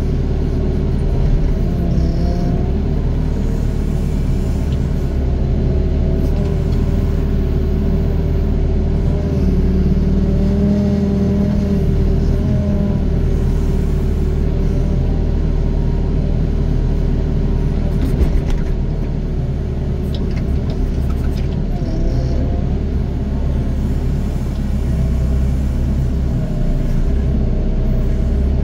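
Doosan DX55 mini excavator's diesel engine running steadily under load, its pitch rising and falling as the hydraulics are worked to dig and dump soil. A single sharp knock about two-thirds of the way through.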